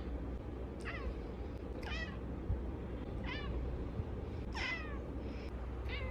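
Cat meowing over and over: about six short, high-pitched calls, each falling in pitch, roughly one a second, over a steady low hum.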